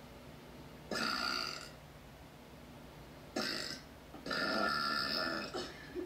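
A young woman belching three times: two short burps, then a longer one lasting over a second.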